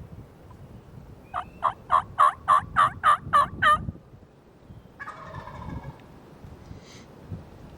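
Hen turkey call sounded by a hunter: a run of about nine loud, raspy yelps, evenly spaced and growing louder, to draw a reply from a gobbler. A fainter, roughly second-long call with several pitched bands follows a second or so later.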